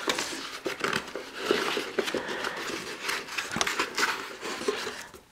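Molded paper-pulp packing inserts scraping and rubbing against a cardboard box as they are pulled out by hand, with irregular rustling and small knocks.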